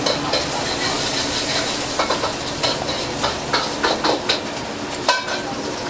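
Fried rice sizzling in a hot wok as it is stir-fried: a steady hiss with repeated sharp clanks of a metal utensil against the pan, the loudest about five seconds in.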